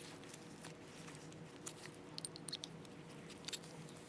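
Small, scattered clicks and light scrapes of the slit lamp fixation target's sliding insert being worked out of its tube, over a faint steady hum.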